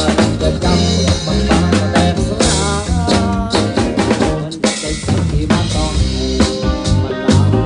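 A band playing with a drum kit: drum strikes keep a steady beat under pitched instruments.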